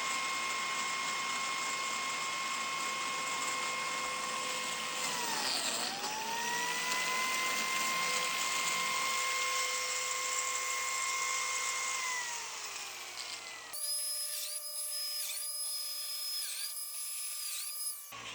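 Biscuit joiner's electric motor running with a steady high whine. About six seconds in its pitch dips briefly and recovers, and about twelve seconds in it winds down. Near the end a different, higher whine with repeated dips.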